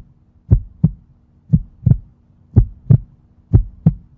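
Heartbeat sound effect: pairs of deep thumps (lub-dub) about once a second over a faint steady low hum.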